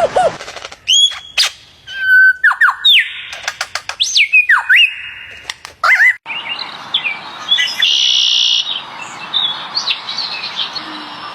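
A bird calling: a varied run of whistled notes gliding up and down, mixed with sharp clicks. After a brief break about six seconds in come buzzy drawn-out notes and short whistles over a steady hiss.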